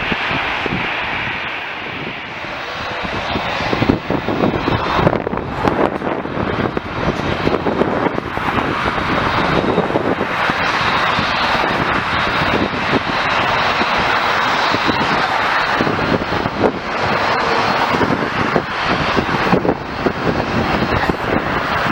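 Jet airliner engines running as the aircraft passes, a steady loud rushing noise that builds over the first several seconds and then holds.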